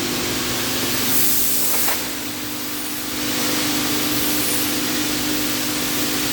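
CNC machine running: a steady spraying hiss over a steady machine hum, the hiss growing brighter for about a second near the start.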